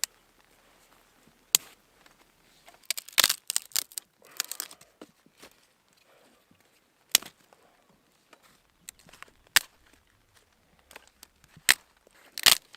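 Dry dead willow twigs being snapped by hand: sharp single cracks at irregular intervals, a second or more apart, with short bursts of crackling and rustling between them.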